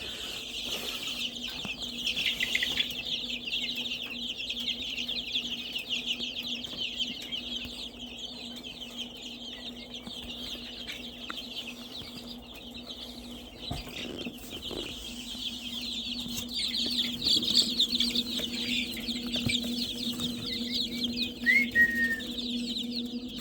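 A brooder full of baby chicks peeping continuously, many high peeps overlapping, with one louder peep standing out near the end. A steady low hum runs underneath.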